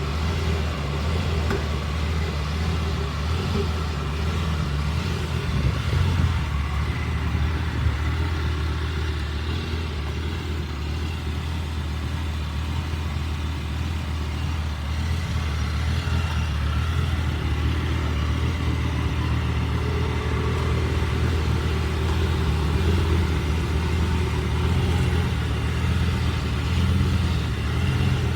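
2006 Lamborghini Gallardo Spyder's 5.0-litre V10 idling roughly, a steady low rumble with a couple of brief louder blips.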